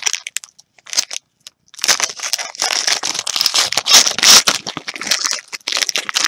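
Crinkly trading-card packaging, likely a pack wrapper, being handled and torn, crackling almost throughout with a short pause about a second in.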